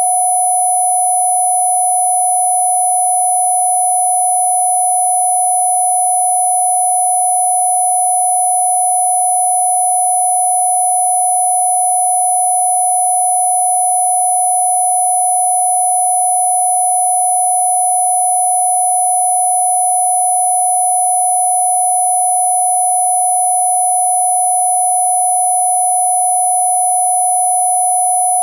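A steady, unbroken pure sine tone, loud and unchanging, with fainter high tones above it: a Rife-style sound-therapy frequency.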